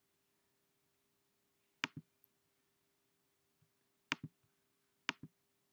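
Computer mouse button clicked three times, each click a quick press-and-release pair, over a faint steady hum.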